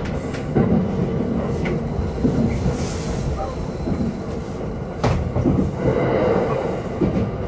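A JR East Takasaki Line electric train running at speed, heard from inside the car: a steady rumble of wheels on rail, with a sharp click about five seconds in.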